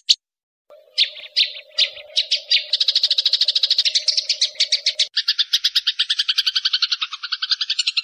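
Masteran recording of songbird and insect calls: after a short gap, sharp high chirps quicken into a fast rattling trill over a steady low tone. About five seconds in it cuts abruptly to a denser, lower, unbroken trill, as the mix changes to another call.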